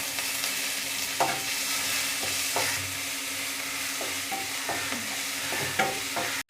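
Chopped onions frying in hot oil in a pan, sizzling steadily, with a spatula stirring and scraping against the pan every so often as they are sautéed.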